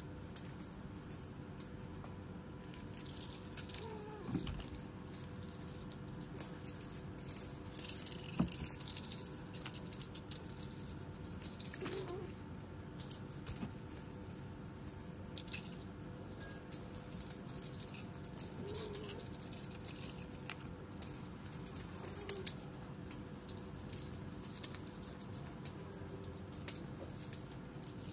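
Scattered light rattling, rustling and clicking as kittens scrabble and pounce on dry dirt at a dangled feather toy, with a few faint short chirps now and then.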